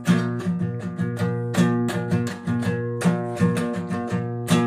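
Acoustic guitar strummed in a steady rhythm, about three or four strokes a second, in an instrumental passage of a folk song.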